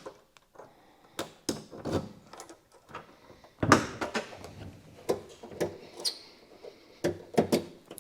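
Irregular sharp clanks, clicks and knocks of hand tools and metal parts being handled, with the loudest knock about three and a half seconds in.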